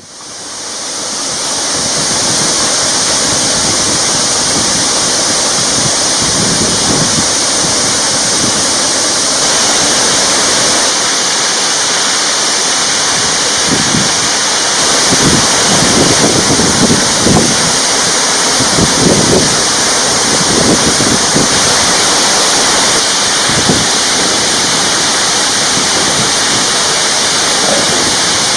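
Waterfall, a steady rush of falling water that fades in over the first two seconds, with a few low rumbles partway through.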